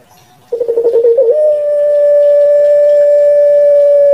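Puter pelung, a long-calling breed of ring-necked dove, giving its long call. About half a second in comes a short rolling, trilled note (the 'geruk'), then one long steady note (the drawn-out 'kwok') held for the rest.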